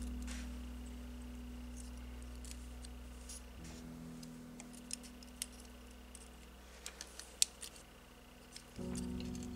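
Soft background music with held chords that change twice, under scattered light clicks and taps from small sheet-metal model parts and pliers being handled. The sharpest click comes about seven seconds in.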